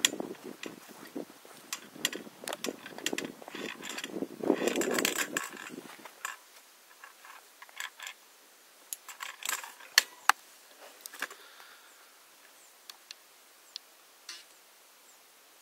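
Handling noise from the camera being moved about: irregular clicks and rustling, dense for the first six seconds, then a few scattered sharp clicks over a faint hiss. No motor or propeller sound.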